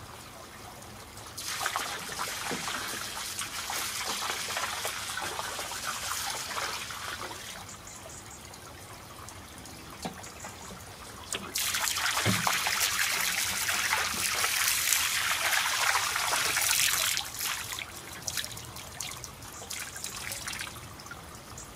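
Water from a watering can pouring into a garden pond in two main bouts: one from about a second and a half in, lasting about six seconds, and a louder one that starts suddenly about halfway through and lasts about five seconds.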